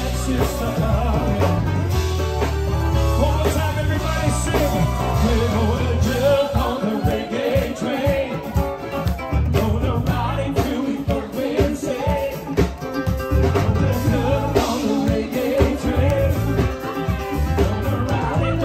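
Background music: an upbeat song with a singing voice over a band, the bass dropping back for several seconds in the middle.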